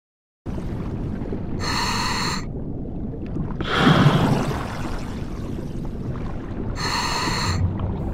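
Scuba diver breathing through a regulator underwater, starting after half a second of silence: two inhalations hiss through the regulator about five seconds apart, with a loud rush of exhaled bubbles between them.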